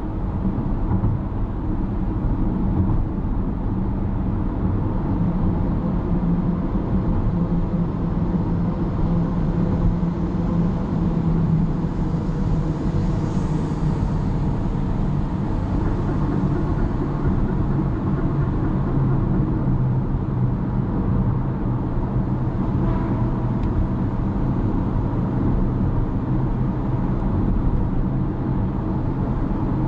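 Car cruising on an expressway: steady engine drone and tyre rumble at an even speed.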